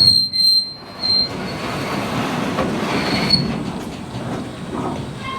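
Boat motor running steadily as the boat gets under way, with a thin high-pitched squeal in the first second and again briefly about three seconds in.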